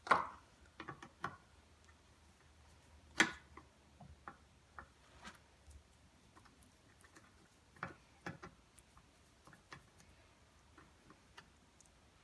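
Scattered light clicks and taps of hand tools and small screws being handled on a workbench during outboard lower-unit disassembly, with a few louder knocks near the start, about three seconds in and about eight seconds in.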